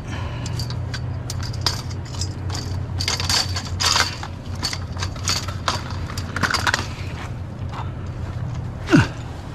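Pieces of scrap metal clanking and rattling as they are handled and fitted into a load, over a steady low hum. Near the end a short sound falls sharply in pitch, the loudest moment.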